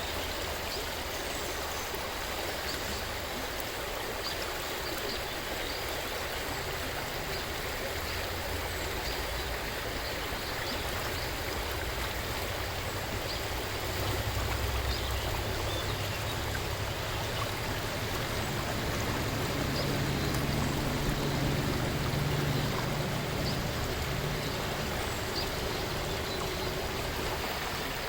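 River water flowing steadily over rocks, a continuous rushing with light trickling. A low rumble swells under it about halfway through and again near the end.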